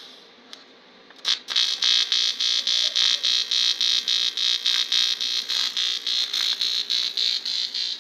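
TIG welding arc on an aluminium bicycle frame, struck about a second in with a sharp crackle, then a loud high-pitched buzz that pulses about four times a second.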